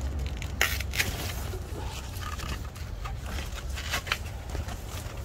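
Mint plants being handled and picked: irregular sharp snaps and rustling of stems and leaves, several in a row, over a steady low hum.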